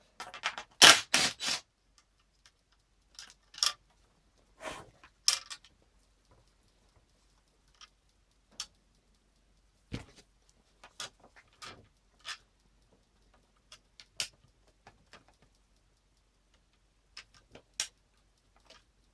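Irregular clicks and knocks of a ski binding and its plastic mounting plate being handled and pushed together, the loudest a quick run of three about a second in.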